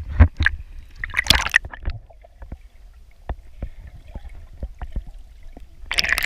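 Water splashing and sloshing against a camera held at the surface, then the muffled sound of the camera underwater with scattered faint clicks, and another splash near the end.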